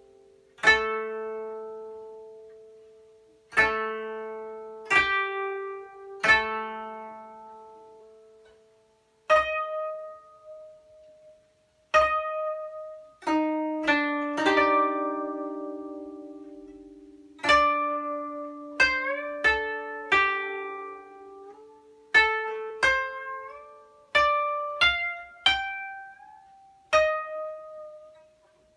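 Solo koto (Japanese thirteen-string zither) playing slowly: single plucked notes ring out and fade, spaced a few seconds apart at first and coming faster from about halfway. In the second half a few notes slide upward in pitch, bent by pressing the string behind its bridge.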